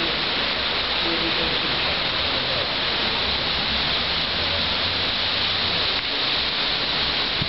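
Heavy rain falling steadily, a loud even hiss of rain on surfaces.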